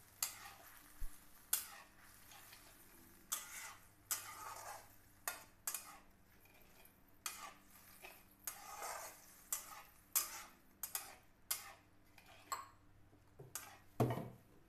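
Metal spatula stirring and scraping around a metal kadhai of roasted vermicelli with sugar and water, in irregular strokes about one or two a second, with a louder knock near the end.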